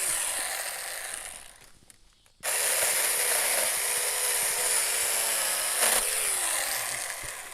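24-volt battery mini chainsaw (4-inch bar) running and cutting a tree limb, its electric motor whine wavering in pitch as it loads. It winds down and stops about two seconds in, starts again half a second later, and winds down near the end.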